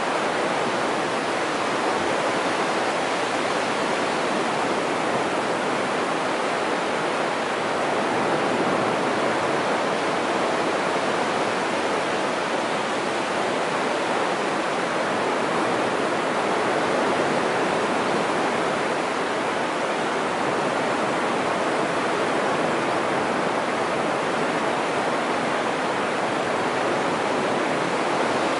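Sea of Japan surf washing onto a sandy beach: a steady, unbroken rush of breaking waves that swells a little now and then.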